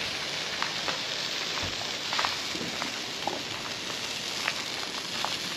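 All-beef hot dogs sizzling on a grill: a steady hiss with scattered small crackles and pops.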